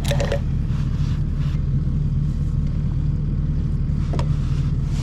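An engine running steadily at an even low hum, with no change in speed.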